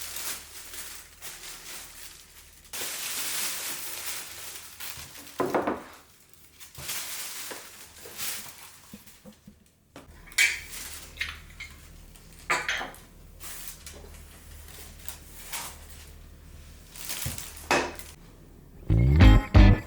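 Dishes and cutlery being handled in a kitchen, with a few sharp clinks and knocks as pieces are set down, between stretches of softer shuffling and hiss.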